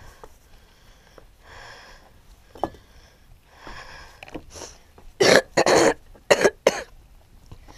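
A person coughing four times in quick succession about five seconds in, after softer breathy sounds.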